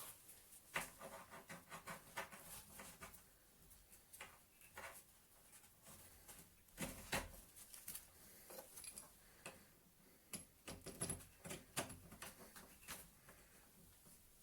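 Faint, scattered clicks and light knocks of a drill clamp and its hardware being handled and fitted to a workbench, irregular, with no steady machine sound.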